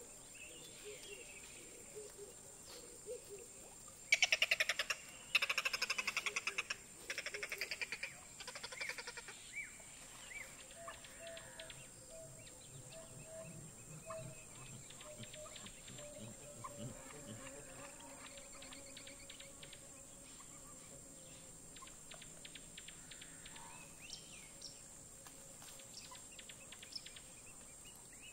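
Rapid rattling animal calls, loud in three bursts from about four to nine seconds in, followed by fainter rattles and a run of short, evenly spaced notes.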